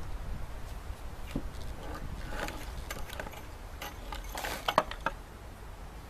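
Handling sounds of a plastic gate release timer and spring gate handle on a wooden table: scattered light clicks, knocks and rustles, with a sharper knock about five seconds in as the unit is set down.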